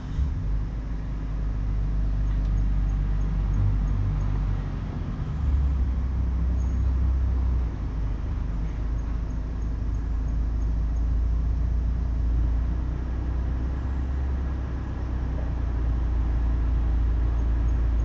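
Steady low rumble, stepping louder about five seconds in and easing slightly near eight seconds.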